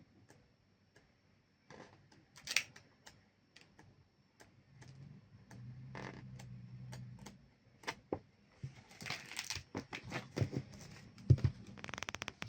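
Close handling noises: scattered sharp clicks and taps with bursts of rustling, and a soft low hum for a couple of seconds in the middle.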